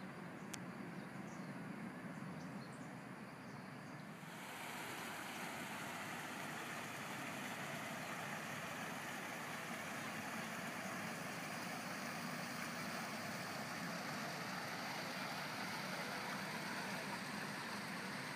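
Water gushing from pipe outlets into a stone-walled pool: a steady rushing splash that starts suddenly about four seconds in. Before that there is only a quieter outdoor hiss and hum.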